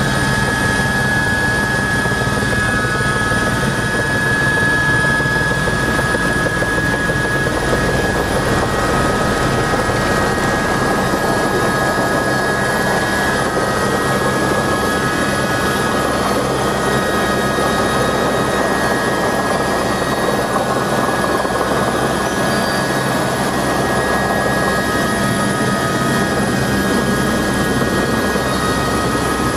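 Helicopter in flight: a steady, loud drone of engine and rotor with thin high whining tones running through it.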